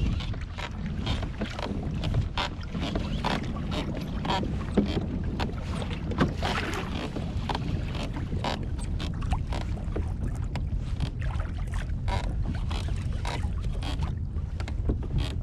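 Wind buffeting the microphone in a steady low rumble, with choppy water slapping and splashing irregularly against the plastic hull of a pedal kayak.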